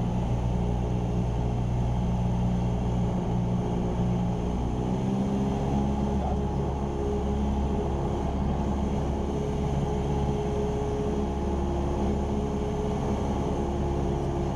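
Cessna 172R Skyhawk's four-cylinder Lycoming engine and propeller running steadily in cruise flight, heard inside the cockpit. The pitch of the drone shifts slightly about five seconds in.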